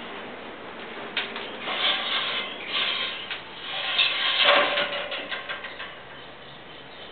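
A series of rasping, scraping bursts, with a sharp click about a second in; the loudest and longest burst comes around four to five seconds in, and the sounds die away near the end.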